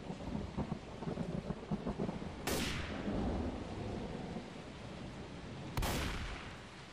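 Thunderstorm: steady rain and low rumbling, broken by two sharp thunder cracks that die away, one about two and a half seconds in and one near six seconds; the storm fades near the end.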